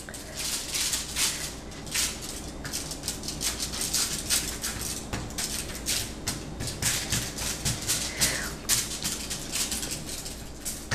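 Aluminium foil crinkling and rustling under hands that press and push pizza dough outward, in many quick irregular scrapes.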